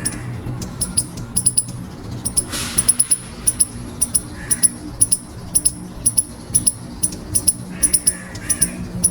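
Eastern gray squirrel squeaking: short, sharp, high squeaks in quick clusters of one to three, about two clusters a second, over a steady low hum.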